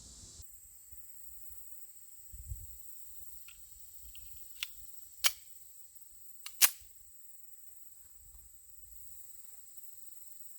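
A handful of short, sharp metallic clicks at irregular intervals, from handling a Springfield Armory 1911 pistol while loading it up, with a dull knock just before them.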